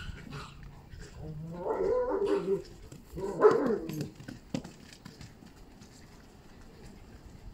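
A dog barking in two loud bursts, the second about a second and a half after the first.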